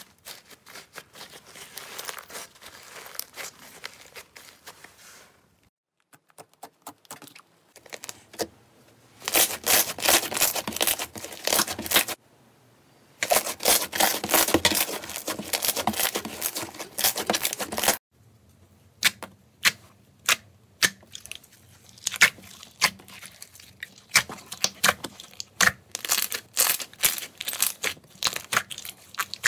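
Slime being worked by hand, in several clips. First a crackly crumbling as a foam-textured slime is broken apart, then long stretches of dense crackling and tearing as glossy slime is stretched. Near the end comes a run of sharp popping clicks as slime is pressed flat with the fingers.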